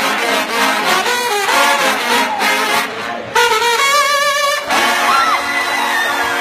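Trombone played with unusual effects: quick shifting notes, then a wobbling held note a little past halfway, then a steady low note with a thin high tone gliding above it.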